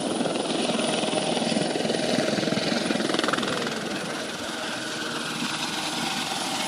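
Helicopter rotor blades chopping steadily as the helicopter lifts off, dipping slightly in loudness about four seconds in.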